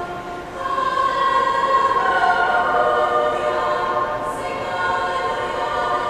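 Girls' choir singing in parts, holding long sustained notes, swelling louder about a second in.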